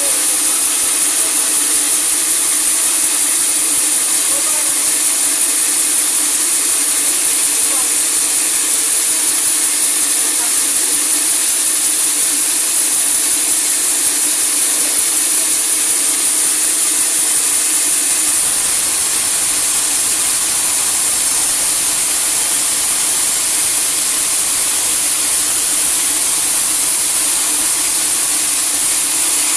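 Sawmill saw cutting through a large teak log: a steady, loud, unbroken run of machine noise with a strong high hiss.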